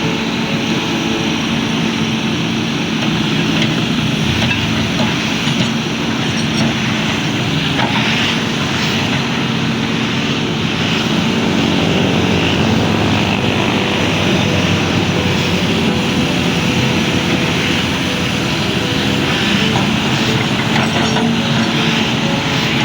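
A heavy engine running steadily with a low hum, under a loud, even rushing noise.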